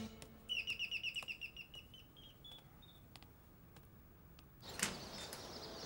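Quiet scene ambience. A quick run of high chirps about half a second in, then a few single chirps, and faint steps on a tiled floor; a soft hiss rises near the end.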